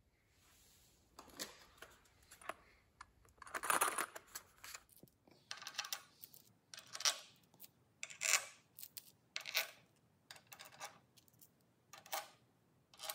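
Metal bolts clinking, scraping and rattling in irregular short strokes as they are handled and set by hand into the Predator 420 engine's crankcase side cover.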